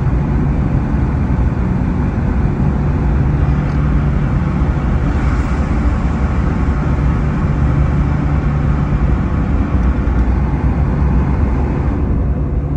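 Steady road noise inside a moving car's cabin: low engine drone and tyre rumble, heard while driving through a road tunnel. The higher hiss eases near the end as the car comes out of the tunnel.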